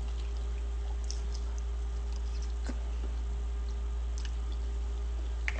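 Faint, scattered small clicks and smacks of someone chewing food, over a steady low electrical hum with a faint higher tone.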